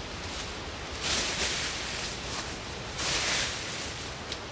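Boots scuffing and kicking through dry leaf litter, with two louder crunching sweeps of leaves about a second in and about three seconds in, and a short sharp click near the end.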